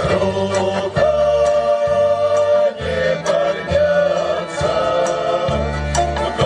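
A folk vocal ensemble singing a song together over an amplified backing track, with sustained bass notes and light ticking percussion.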